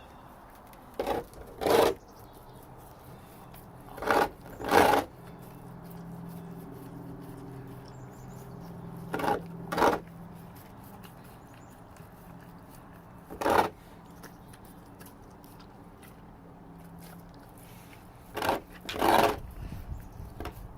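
A dog crunching ice, snapping and chewing it with loud sharp crunches. Most of the crunches come in pairs, a few seconds apart. A faint low steady hum runs under the middle stretch.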